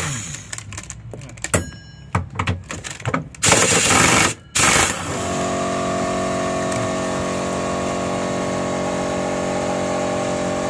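Pneumatic impact wrench hammering in several short bursts on the drive pulley nut of a Samsung top-load washing machine. From about halfway, a steady machine drone takes over and holds at an even level.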